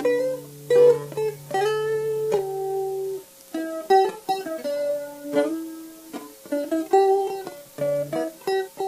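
Plucked guitar playing a single-note melody, over a held low note for the first three seconds.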